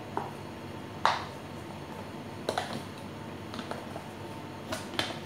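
Scattered sharp clicks and knocks of kitchen containers and utensils being handled and set down on a stone countertop. The loudest knock comes about a second in, with a quick cluster near the end.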